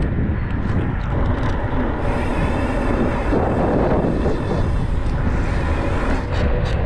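Wind rushing over the microphone and tyre rumble on a dirt road as a mountain bike is ridden, a steady loud rush with a few light rattling clicks near the end.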